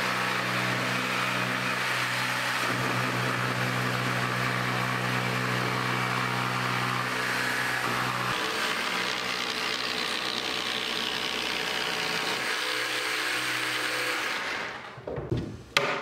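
Festool corded jigsaw running steadily as its blade cuts a circle through a plywood sheet. The motor hum shifts slightly about halfway through, and the saw stops a second or two before the end.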